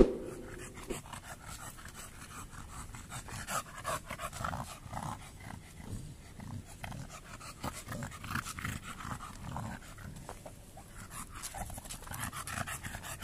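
An overweight American bully dog panting hard with its mouth open: out of breath after only a short walk in the midday heat, which the owner takes as a sign of its poor stamina. A short chime sounds right at the start.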